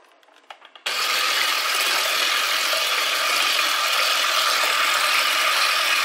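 A 350-watt Multimix electric hand mixer switches on about a second in and runs steadily, its wire whisk beaters churning eggs, sugar and orange zest in a glass bowl to beat them frothy.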